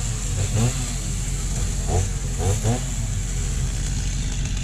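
Two-stroke Stihl chainsaw running just after being pull-started, its engine revved in several quick blips that rise and fall in pitch.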